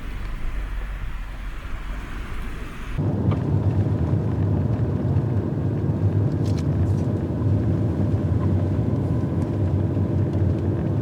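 A car driving, with steady road and engine rumble. About three seconds in it changes abruptly to a louder, deeper rumble.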